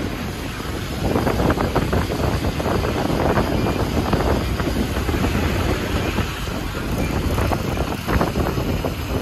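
Motorcycle riding along a mountain road: steady engine and road noise with wind on the microphone, getting louder about a second in.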